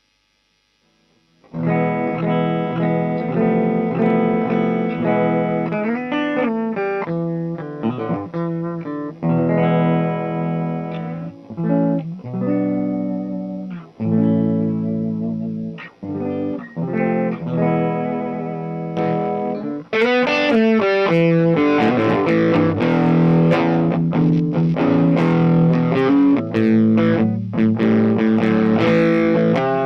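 1970s Made-in-Japan Ibanez thinline electric guitar being played: chords and picked phrases after a second or so of silence. About twenty seconds in, the playing turns louder and brighter.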